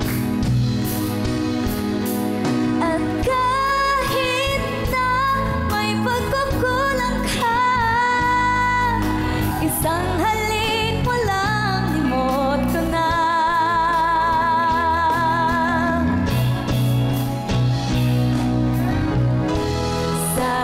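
A woman singing a pop song over a backing track, holding long notes with a wavering vibrato.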